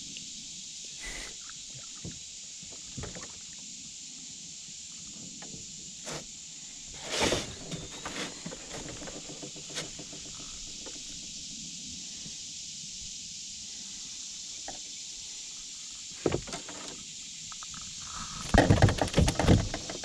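Bumps and knocks on a canoe's hull as a landed fish is handled in the boat, over a steady high hiss, with a burst of rapid, loud knocks near the end as the fish is set down on the canoe floor.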